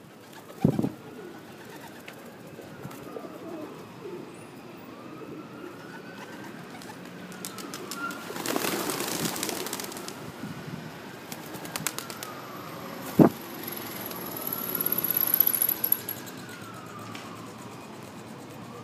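Feral pigeons cooing while they feed, with a rustling burst about nine seconds in and a sharp knock about thirteen seconds in. A siren wails faintly behind them, rising and falling every few seconds.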